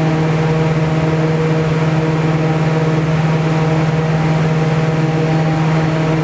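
Wind-wave tank's wind blowing at maximum speed: a steady, loud rush of air and spray over the water, with a strong deep steady hum and a few fainter higher tones from the fan machinery.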